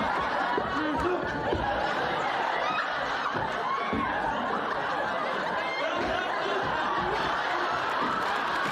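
Studio audience laughing, a sustained wave of crowd laughter that holds steady throughout.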